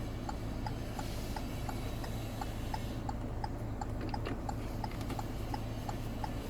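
Faint, even ticking, several ticks a second, over a low steady hum.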